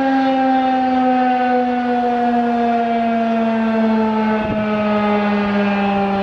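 Federal Signal 2001-SRNB electromechanical warning siren sounding one steady, rich tone whose pitch falls slowly and evenly as the siren winds down.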